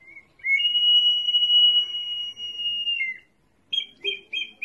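Ceramic whistling jar in the style of the Inca and pre-Inca whistling vessels, made to imitate a kestrel. It gives one long, steady, high whistle of two close notes for about three seconds, then near the end a quick run of repeated bird-like chirps, about three a second.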